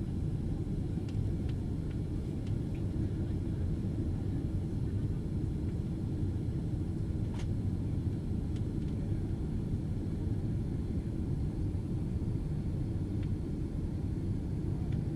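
Steady low rumble of a Boeing 767-400's cabin, with engine and airflow noise heard from inside, holding an even level, with a few faint ticks.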